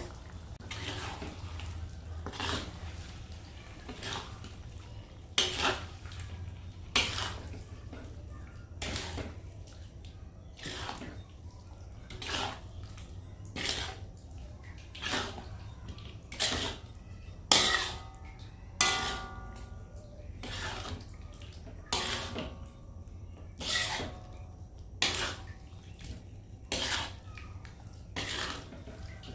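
A metal utensil knocking and scraping against a cooking pot or pan, a sharp clatter about every second and a half, a few of them briefly ringing, over a steady low hum.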